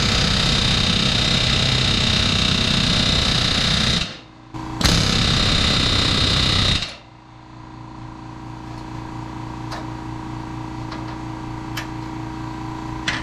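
Pneumatic rivet gun hammering in two long runs: one of about four seconds and, after a short pause, a second of about two seconds. These set new aluminum rivets in a Bearhawk aircraft's main spar. Then a quieter, steady machine hum with a few light clicks.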